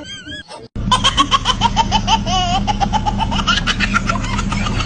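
Hearty laughter in quick repeated bursts over a steady low truck-engine rumble that starts just under a second in; the engine sound is the prank truck sound.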